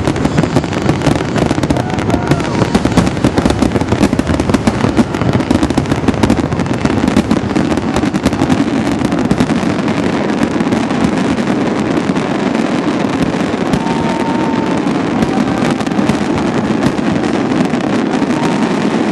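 Fireworks display: a dense, continuous barrage of bangs and crackling. It is thickest and loudest over the first several seconds, then settles into a steadier crackle.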